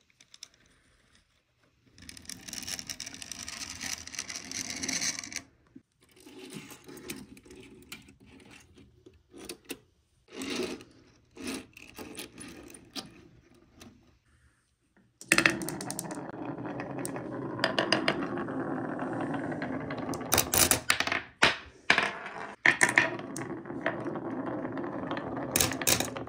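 Glass marbles rolling down a grooved wooden slope, a steady rolling noise in stretches, with sharp clicks as they knock into each other and into the bed of a plastic toy truck. The first two seconds are near silent, and the longest stretch of rolling starts about halfway through.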